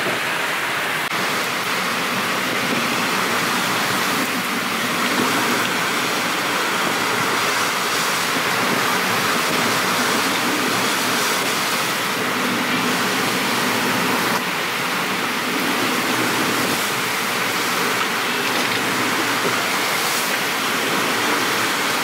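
Steady rush of wind and water around a Leopard 45 cruising catamaran sailing fast on a beam reach, at about ten knots of boat speed in 25 knots of wind.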